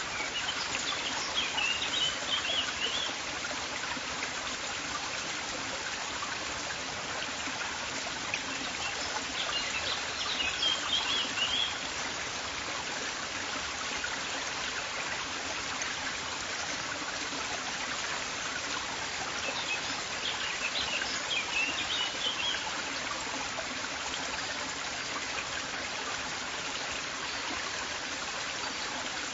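River water flowing steadily, with a bird chirping in three short bursts about ten seconds apart.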